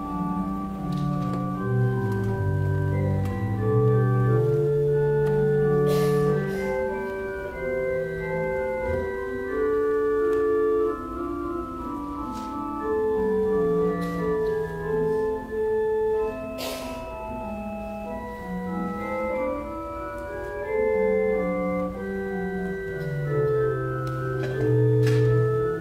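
Church organ playing offertory music: slow, sustained chords over a moving bass line.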